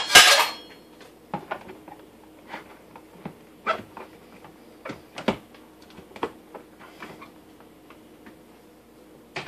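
Handling noise from packing fruit into a blender jar: a loud rustle right at the start, then scattered light knocks and clicks.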